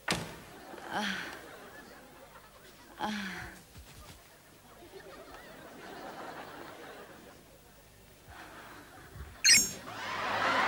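Studio audience laughter in scattered chuckles, then a sharp, loud crack about nine and a half seconds in, followed by a swell of audience laughter and applause.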